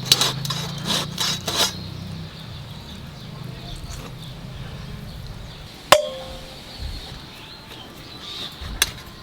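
Chicken being cut into pieces on a boti: a quick series of sharp knocks and cracks, then a single loud metallic clang about six seconds in that rings briefly, and another knock near the end. A low hum sounds underneath for the first few seconds, then fades.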